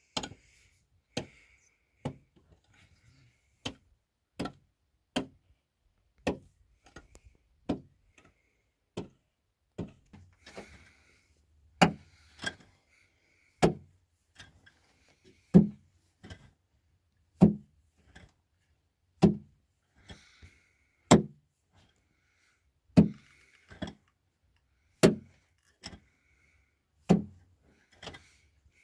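A series of sharp, heavy blows, first about one a second, then slowing to about one every two seconds and getting louder.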